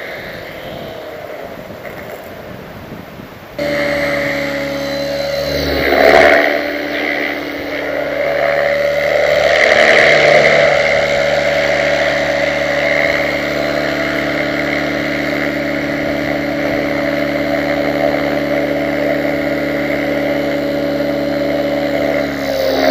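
Align T-Rex 600EFL Pro electric RC helicopter in flight: a steady whine of several tones from its motor, gears and rotor. It starts abruptly a few seconds in, after a quieter stretch of hiss. It swells briefly about six seconds in and again around ten seconds.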